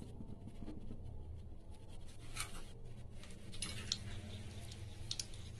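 Faint sizzle of dried red chillies and fenugreek seeds frying in hot oil, with a few small sharp crackles spread through, over a steady low hum.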